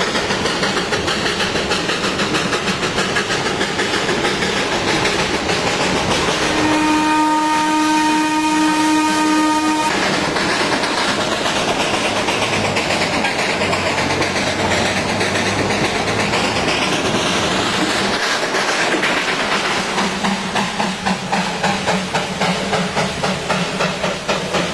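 Darjeeling Himalayan Railway narrow-gauge steam locomotive hauling its train, a steady noise of running gear and steam. The steam whistle sounds once, a chord of several tones held for about three seconds. Near the end comes a quick, even beat of exhaust chuffs as the engine passes close.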